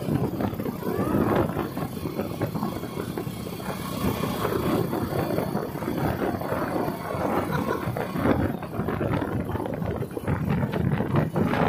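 Continuous uneven rumbling of a moving vehicle during a ride, with wind on the microphone.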